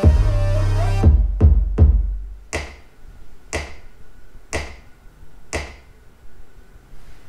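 Electronic music with deep synth bass played back on a 3D-printed 5.1 surround speaker system with a 6.5-inch paper-cone subwoofer. A dense bass-and-synth passage for about a second gives way to single sharp drum-machine hits about once a second, which thin out near the end.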